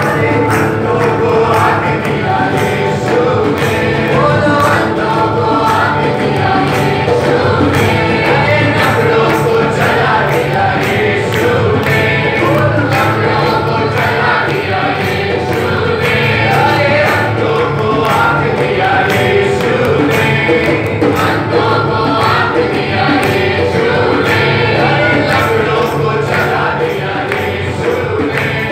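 Church worship group singing a song together, men's and women's voices, backed by acoustic guitar, electric bass and keyboard.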